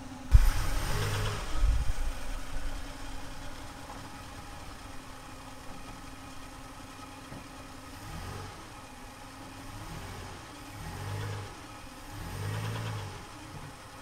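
Old Chevy Nova's engine running at idle, with a loud low rush in the first couple of seconds. In the last few seconds the engine is revved up and let back down four times.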